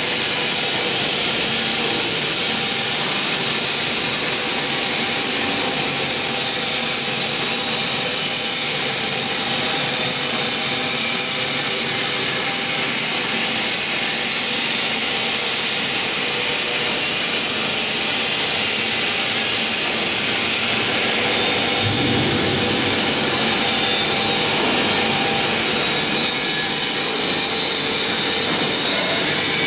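Machinery in a metalworking shop running steadily: a continuous rushing noise with a few constant hum tones. A lower rumble joins about two-thirds of the way through.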